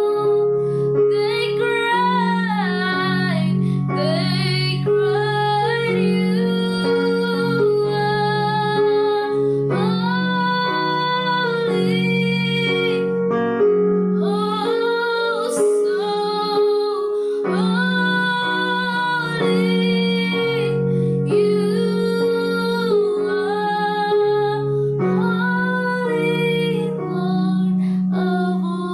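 A woman singing a slow melody over held accompaniment chords.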